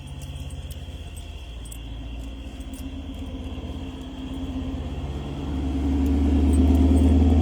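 A car approaching on the road, its low engine and tyre rumble growing louder over the last two seconds as it draws near.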